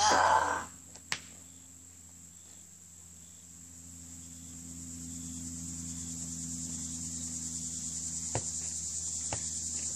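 A steady, high-pitched insect chorus that swells louder through the second half, over a low steady hum. A brief loud rush of noise comes right at the start, followed by a few sharp knocks about a second in and near the end.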